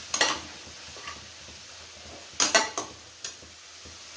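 Metal spatula scraping and knocking against a metal kadhai as an onion-tomato masala is stirred, with a couple of strokes at the start and a quick run of them past the middle. A faint sizzle of the frying masala runs underneath.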